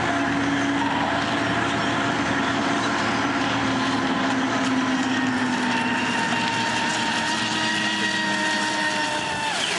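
Aquacraft Supervee 27 electric RC deep-vee boat running at speed on the water: a steady motor whine over a constant hiss, drifting slightly in pitch and dropping sharply near the end.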